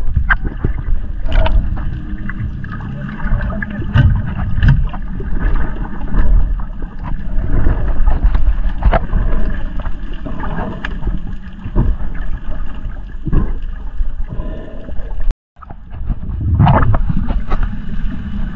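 Muffled underwater noise picked up by a snorkeler's camera: a low rumble with irregular bubbly pops and knocks.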